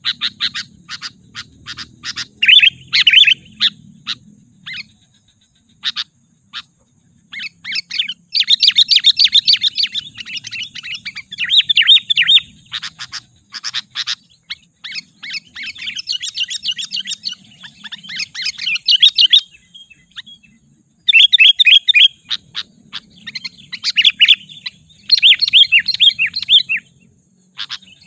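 Sooty-headed bulbul calling: phrases of rapid, chattering notes repeated again and again, with short pauses between them.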